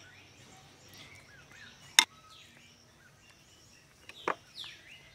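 Birds chirping over a steady high insect buzz. A sharp knock comes about two seconds in, and a softer knock and a brief rustle follow near the end, as spice and garlic pastes are added from a bowl to raw chicken in a pot.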